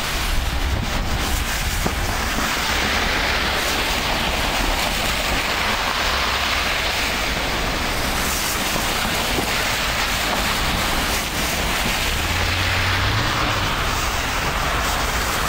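Wind buffeting the microphone in a snowstorm: a heavy low rumble under a steady rushing noise that swells and eases.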